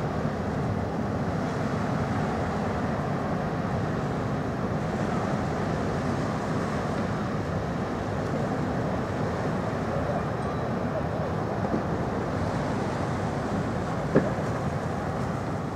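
Steady low rumble of a large passenger ferry passing close by, its engines and the water it pushes aside, with one sharp tap about 14 seconds in.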